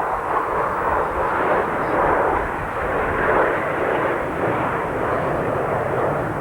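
Several radio-controlled model cars' small engines buzzing together during a race heat, a steady, dense, rough drone with no single clear pitch.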